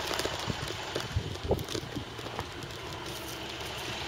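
Diesel engine of an International 4300 box truck running as the truck pulls away, with a few short knocks and rattles about a second and a half in.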